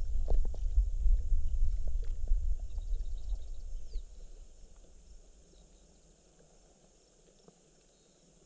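Low rumbling of wind buffeting the microphone, with a few light knocks, fading away about four seconds in to near silence.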